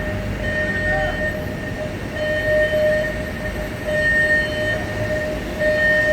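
Storm winds of a monsoon microburst rumbling and buffeting, with a pitched electronic warning tone beeping for under a second at a time, repeating about every one and three-quarter seconds.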